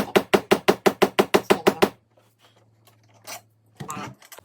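Quick, even hammer taps, about six a second, marking the screw-hole positions on the wall; the tapping stops about two seconds in. A short scraping sound follows near the end.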